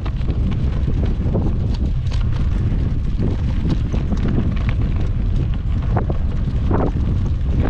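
Wind buffeting the microphone with a steady low rumble while riding a bicycle, with irregular small crackles and ticks from the bike rolling over a rutted dirt track.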